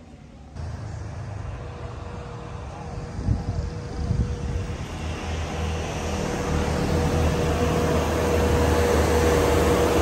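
A motor vehicle running on the road: steady engine and road rumble with a constant hum, starting abruptly about half a second in and growing gradually louder.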